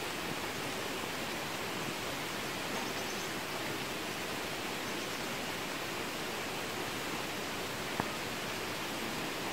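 Steady rain falling on a garden bed of soil and lettuce, an even hiss, with one sharp tap near the end.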